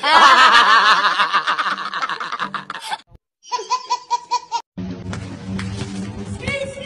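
A group of young men laughing hard together, cut off suddenly about three seconds in; then a baby laughing in quick, evenly spaced pulses for about a second; then music from about five seconds in.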